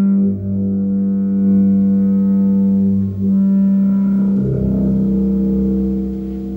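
Live rock band holding long sustained notes on electric instruments: a steady low note that breaks off briefly twice, then gives way to a deeper droning chord about four and a half seconds in.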